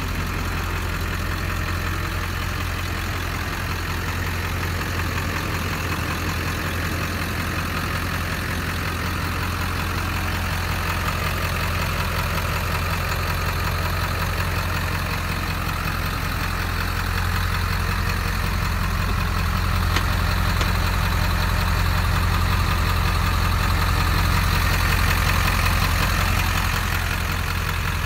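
A 2001 Ford F-250's 7.3-litre Power Stroke V8 turbo diesel idling steadily, a little louder for a while in the second half.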